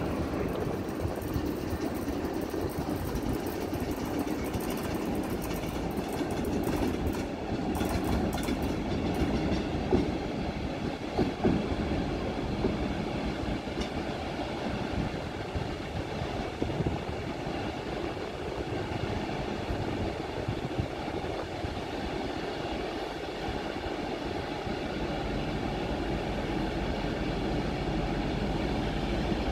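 Siemens Vectron electric locomotive creeping up to its coaches for coupling while shunting: a steady hum and rumble of the locomotive and its wheels on the rails, with a few short knocks about ten to twelve seconds in.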